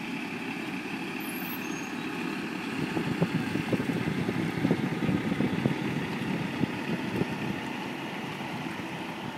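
A semi truck pulling a loaded lowboy trailer rolls slowly across gravel, its diesel engine running under an uneven crackling rumble. The sound is loudest in the middle as the rig passes closest, then eases off.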